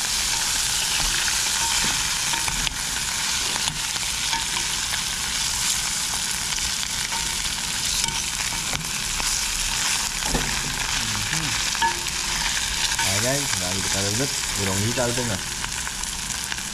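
Shrimp and fish sizzling as they fry in hot oil in a pan, with a metal spoon stirring and scraping them through the oil. The sizzle stays steady throughout.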